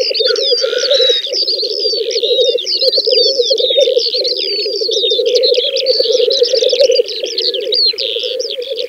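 Black grouse cocks calling on a lek: a continuous chorus of rapid bubbling rookooing calls, with many short higher chirps and whistled calls over the top.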